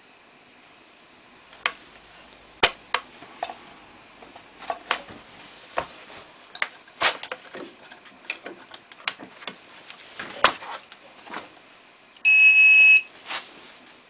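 Scattered knocks and clicks of a wooden board being handled on a digital luggage scale, then one loud, steady high beep of a bit over half a second from the scale near the end.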